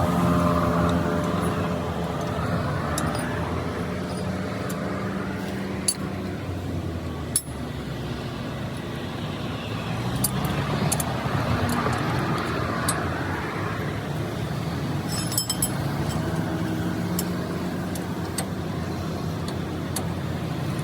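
Motor vehicle engines running with traffic noise, their hum fading and swelling, and a few sharp metallic clinks.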